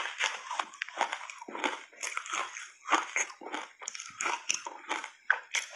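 Matcha-powdered ice chunks being bitten and chewed: a dense, irregular run of crisp crunches, several a second.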